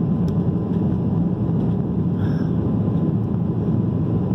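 Jet airliner in flight heard from inside the passenger cabin: the steady low noise of engines and rushing air, with a faint thin steady tone above it.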